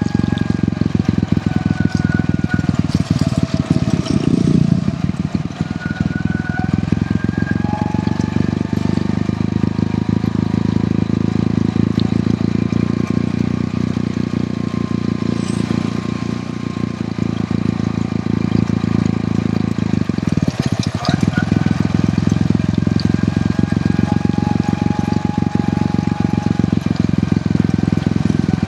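Hero Honda CD100 motorcycle's single-cylinder four-stroke engine running steadily while riding, with a few brief dips in level.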